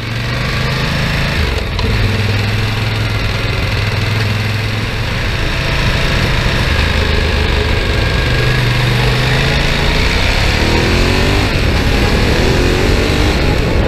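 2012 Ducati Diavel's 1198 cc L-twin engine running at low, steady revs over a steady rushing of wind and road noise. About ten seconds in it revs up as the bike accelerates.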